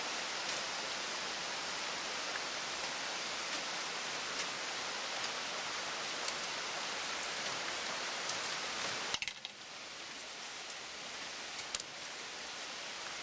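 Steady hiss with a few faint ticks as rattan is split and worked with a parang. The hiss drops abruptly about nine seconds in, with a click.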